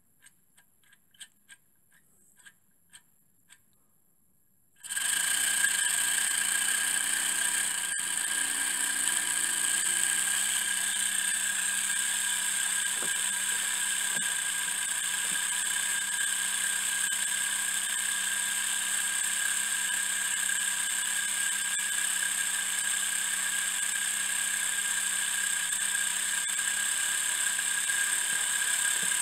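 A few light clicks as the miniature three-cylinder steam engine is handled, then about five seconds in it starts running on steam all at once: a steady, high-pitched whir with a hiss, holding even speed.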